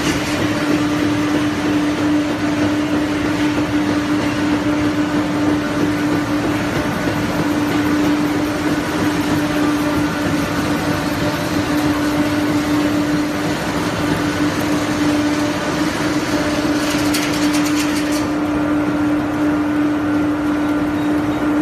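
Waste-tyre cracking and grinding line running: crushers, pulverizer and conveyors making a loud, steady industrial din over a constant low hum. About three-quarters of the way through, a burst of rattling lasts about a second.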